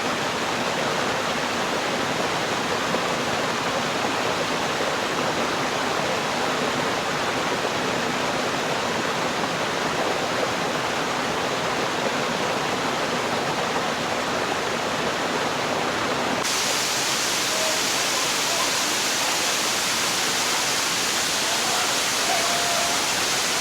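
Waterfall: a steady, even rush of falling water. About two-thirds of the way through, the sound changes abruptly and turns brighter and hissier.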